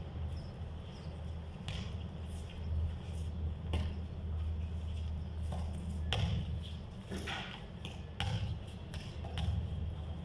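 A basketball bouncing on a concrete court: a handful of separate, irregularly spaced bounces, over a steady low rumble.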